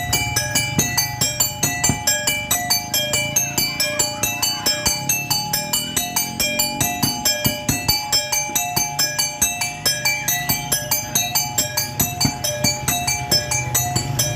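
Music on tuned metal percussion in a quick, even rhythm of short ringing strokes, about four a second, cycling through a few repeated notes.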